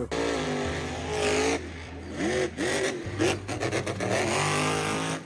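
Vehicle engine revving, its pitch rising and falling several times, used as the sound of a toy monster truck driving out.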